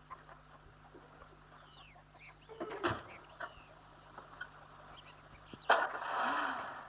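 Farmyard sounds: small birds chirping, with a chicken's louder, falling squawk about three seconds in, then a sudden rush of noise near the end.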